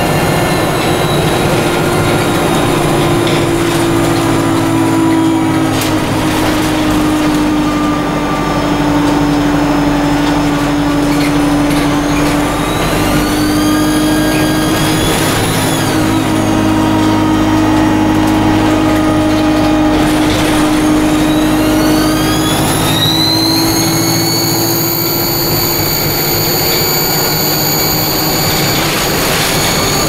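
Alexander Dennis Enviro 200 single-deck bus heard from inside the saloon while under way: a steady diesel engine note with a loud, high-pitched turbo whine. The whine climbs and falls back about halfway through, then climbs again and holds high for the last few seconds as the bus accelerates.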